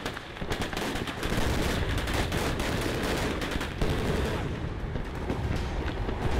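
Gunfire: rapid, overlapping shots from automatic weapons, crackling on without a pause.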